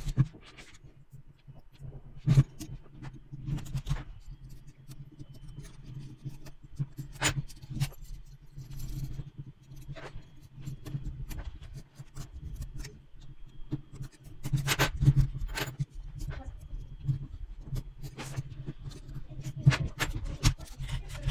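Small metal construction-kit parts and tools clinking, scraping and knocking against each other and a wooden table as the kit is assembled by hand, in irregular clicks over a low steady hum.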